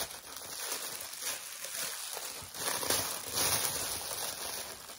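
Clear plastic bag crinkling and rustling in irregular bursts as it is handled.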